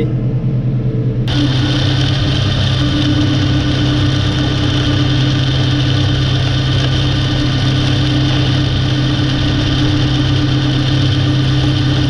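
New Holland T6 tractor engine running steadily, first as a muffled drone inside the cab, then, after a sudden switch about a second in, heard outside together with its side-arm flail mower running along a grass and reed verge.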